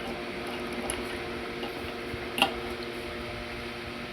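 Steady low electrical hum with a single sharp click about two and a half seconds in, as a multimeter test clip is fitted onto a microwave magnetron terminal.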